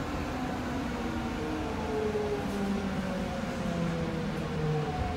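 GTO-thyristor VVVF inverter and traction motors of a Nagoya Subway 5050-series train, heard inside the car: several tones slide steadily down in pitch together as the train slows, over the rumble of the wheels on the rails.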